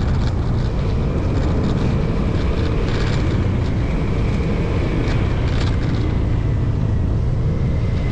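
A motorcycle being ridden, its engine running steadily under a constant low rushing noise.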